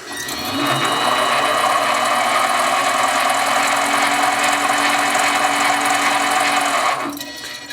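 Harbor Freight 7x10 mini lathe switched on: it runs up to speed over about a second and holds a steady whine of several tones, then spins down near the end.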